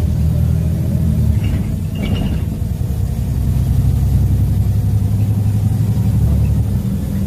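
Inside a moving LiAZ 5292.22-01 city bus: its MAN E0836 LOH01 compressed-natural-gas engine runs at a steady low drone, with a few faint brief higher sounds about two seconds in.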